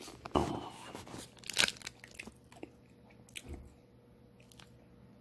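Crunching and chewing of a chewy chocolate chip granola bar, mixed with crinkles of its foil wrapper as it is handled. A few sharp crunches come in the first two seconds, then quieter, sparser ones.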